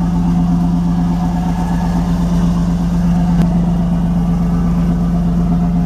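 A fishing boat's inboard engine running steadily at idle: a constant low hum with a fine rumble beneath it.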